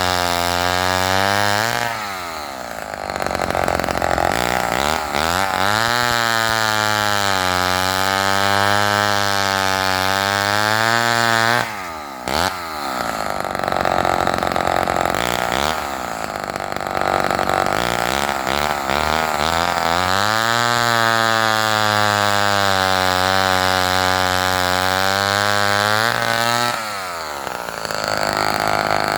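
Homelite XL-12 two-stroke chainsaw with a 20-inch bow bar running at high revs. Its engine pitch sags and climbs back several times, with a brief sharp drop about midway.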